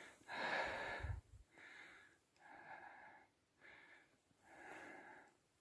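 A man breathing hard and out of breath, about a breath a second, just after hauling a big pike out through the ice hole. The first breath is the loudest.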